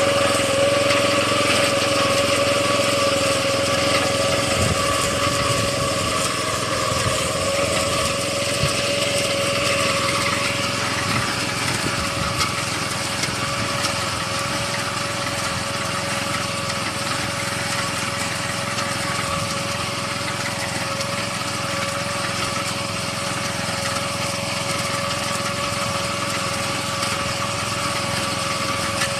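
Small petrol engine of a motorised soybean-cutting machine running steadily at high speed, a constant high engine note.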